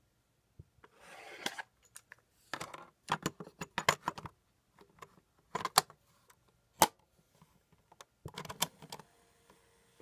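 Plastic cassette tape being handled and pushed into a portable cassette player's tape well, with clattering and a string of clicks. There is one sharp snap about seven seconds in, and more clicking as the cassette door is shut. A faint steady hiss and hum sets in near the end.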